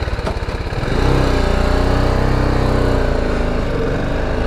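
BMW G310GS single-cylinder motorcycle engine pulling away. It pulses low and unevenly for about the first second, then picks up and runs with a steady note.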